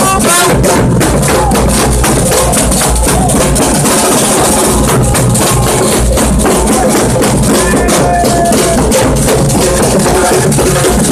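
A group of drummers playing snare and marching drums together in a loud, fast, steady rhythm.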